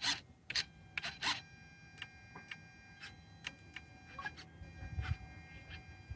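RC airplane servos whirring in short, irregular bursts as the control surfaces are worked back and forth, with a faint steady high whine underneath. The servos are loud for their size, strong enough to flex the aileron.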